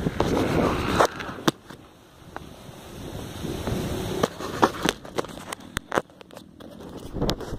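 Handling noise from a camera being moved and set down on a motorcycle's handlebar: rubbing and wind-like buffeting at first, then scattered sharp knocks and scrapes, with a cluster of knocks near the end.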